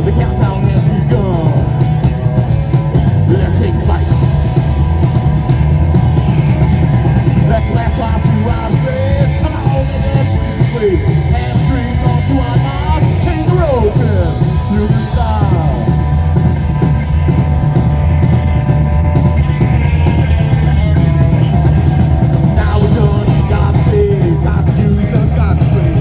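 Live metal band playing loud, dense music on electric guitar and drum kit, heavy in the low end, with sliding guitar or vocal pitches partway through.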